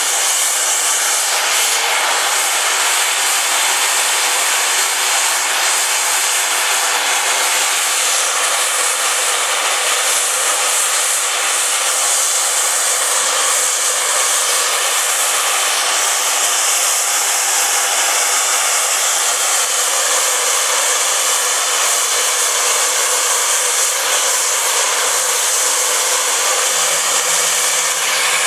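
LSWR M7 class 0-4-4 tank steam locomotive blowing off steam through its safety valves while standing: a loud, steady hiss. The sign that the boiler is at full working pressure.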